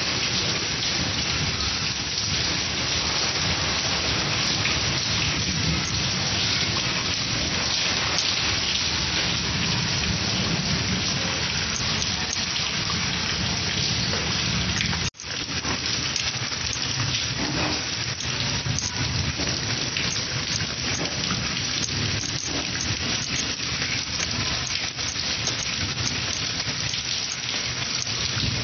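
Heavy rain pouring steadily onto a concrete yard, a dense unbroken hiss and patter of splashing drops, cut off briefly about halfway through before it resumes.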